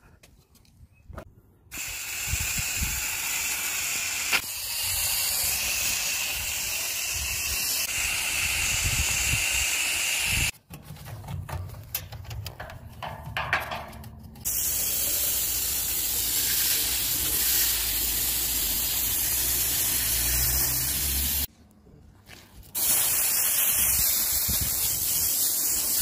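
Water spraying from a garden hose nozzle onto an air conditioner's condenser coil, rinsing it from the inside out. It is a steady hiss that stops for a few seconds about ten seconds in, and again briefly near the end.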